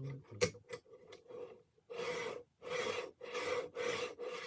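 A few light clicks, then from about two seconds in a hand tool scraping wood in steady back-and-forth strokes, about one and a half strokes a second.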